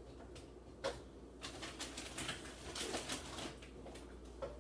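Faint scattered clicks and knocks of things being handled, mostly in the middle stretch, over a low steady hum.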